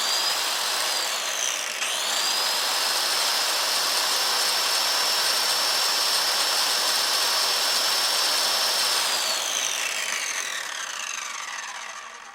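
Electric drill with a bad bearing running at speed: a high whine over a rough, grinding rush. It dips briefly and speeds back up about two seconds in, holds steady, then is let go and spins down with a falling whine over the last few seconds.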